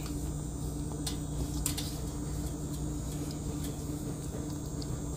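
Hand dredging chicken pieces in seasoned flour in a stainless steel bowl: soft rustling with a few light taps, over a steady background hum.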